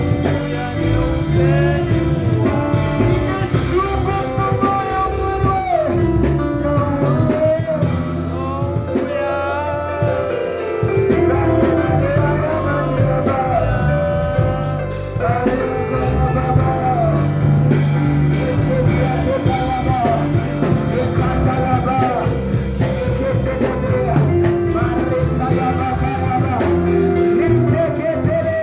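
A song: a singing voice holding long, wavering lines over a band with bass and a steady drum beat.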